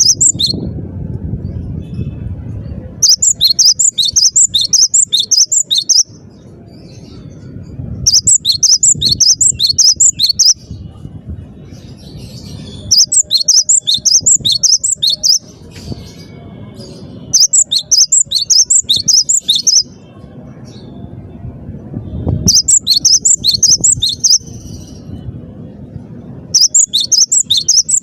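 Cinereous tit singing: loud bouts of two to three seconds of rapid, repeated high notes, coming again every four to five seconds, six times, over a low background rumble.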